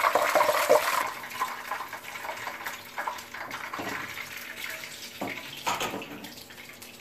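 Hot oil sizzling and crackling in a frying pan around a whole deep-fried tilapia, loud in the first second and then dying down to a faint crackle.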